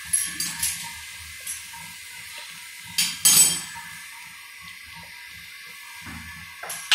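Metal kitchen pots and utensils clinking and knocking: a few sharp knocks at the start, a louder clatter about three seconds in, and another near the end.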